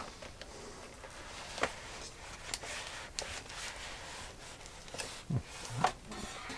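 Cardboard packaging and a plastic sleeve being handled as a tablet is slid out of its box: scattered light clicks, scrapes and rustles, the loudest about five to six seconds in.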